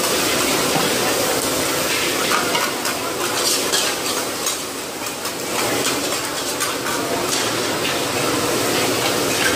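Hoi tod (crispy mussel omelette) sizzling in oil on a large flat griddle, with metal spatulas scraping and clinking against the griddle as the cooks toss and turn it.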